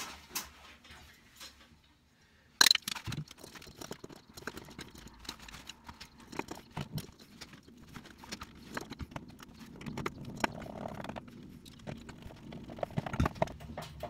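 Hand screwdriver driving screws through a plastic pull-cord switch base into a ceiling joist: a sharp click about two and a half seconds in, then a long run of irregular clicks and scrapes as the screws go in. The screws are tough to turn, the sign that they are biting into the joist.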